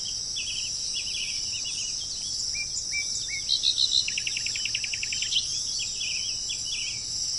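Songbirds chirping and singing: short chirps, a few rising whistles, and a fast trill about halfway through. Under them runs a steady high-pitched insect drone.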